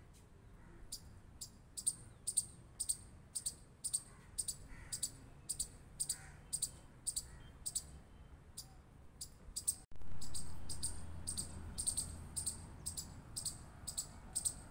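Chipmunk giving its repeated high-pitched 'chip' alarm call, short sharp chirps at a steady two to three a second. About ten seconds in the recording cuts and the background noise grows louder, while the chirping carries on.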